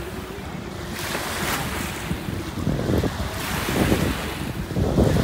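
Shallow water lapping and splashing around a floating foam mat, with wind buffeting the microphone in uneven gusts that grow louder about halfway through.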